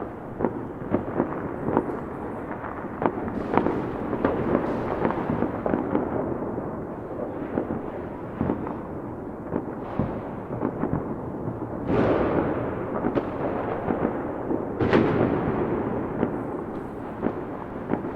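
Fireworks going off in a dense barrage: many quick sharp bangs over a constant rumble. Two bigger booms come about twelve and fifteen seconds in, each dying away over a second or so.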